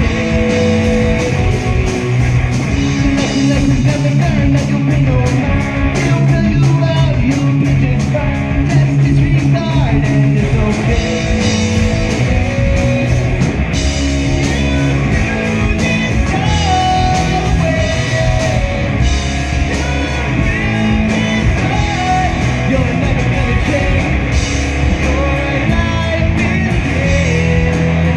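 Live rock band playing amplified guitars, bass and drums, with a voice singing over a steady drum beat.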